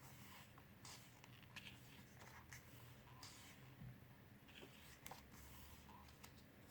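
Near silence with faint paper rustles and light taps: glossy photo book pages being handled and turned.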